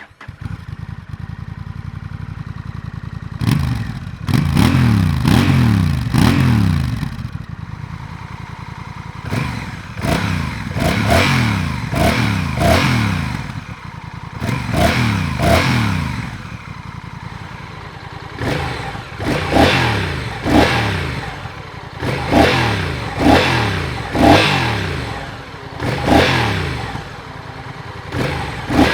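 Honda Rebel 1100T's 1084 cc parallel-twin engine through its exhaust, idling and then blipped by the throttle again and again. The quick revs come in three bunches with short stretches of idle between them.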